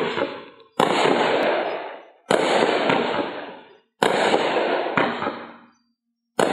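Cyber Commando 15-shot consumer fireworks cake firing in succession: about six sharp bangs, roughly one every second to second and a half, each trailing off over about a second.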